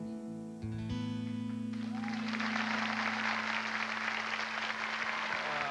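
The song's closing chord on acoustic guitar and keyboard rings out, then a studio audience breaks into applause about two seconds in while the last low notes fade under it.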